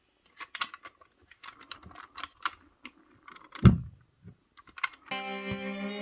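A run of small, irregular clicks and taps, typical of hands working a portable radio cassette player's plastic case and buttons, with one louder thump about two-thirds of the way through. Music starts near the end.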